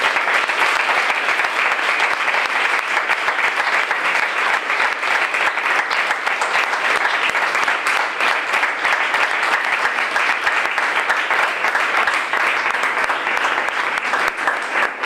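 An audience applauding: dense, steady clapping that begins to die down at the very end.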